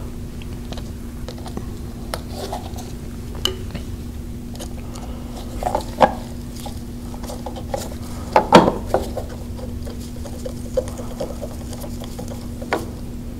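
Screwdriver driving screws into a plastic machine cover: scattered light clicks and taps of metal on plastic, with a few sharper knocks about six and eight and a half seconds in. A steady low hum runs underneath.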